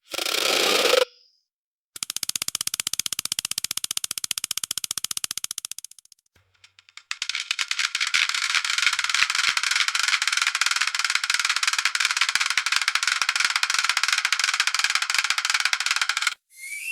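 Pallet wrapper spinning: a rapid, even clicking chatter that runs in two long stretches with a short break between them, after a brief burst of noise at the start.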